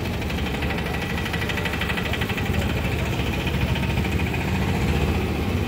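A vehicle engine idling steadily with a fast, even clatter, slowly growing louder.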